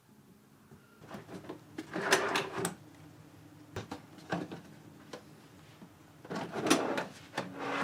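A series of knocks and clatter from objects being handled, with two busier bursts about two seconds in and about six and a half seconds in.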